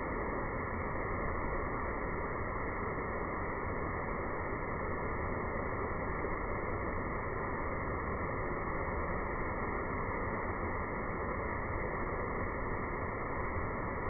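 Waterfall pouring down rock into a pool: a steady, dull rush of falling water with no high tones.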